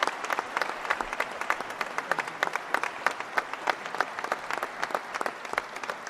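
Applause from a roomful of people, many hands clapping at once without a break.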